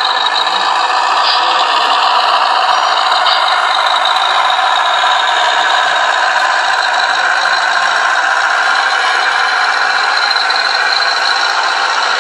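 Wedico 1:14.5-scale radio-controlled Scania 140 tractor unit driving with its five-axle lowboy trailer in tow: a steady, loud mechanical running noise.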